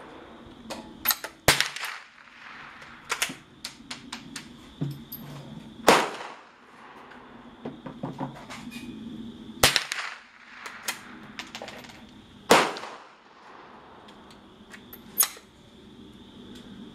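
Shots from a .22 fired at a plywood target: sharp cracks, the loudest four coming every three to four seconds, with many fainter cracks in between.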